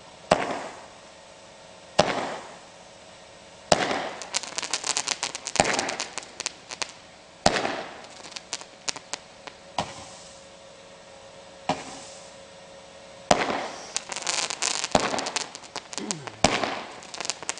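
Consumer fireworks cake firing shot after shot. A sharp bang comes about every two seconds, and several are followed by a spell of rapid crackling from crackle comets and crackling fish effects.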